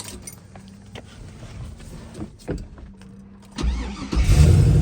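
A few light clicks and knocks, then the Firebird's LS1 V8 is cranked about three and a half seconds in and catches, settling into a loud, steady idle near the end.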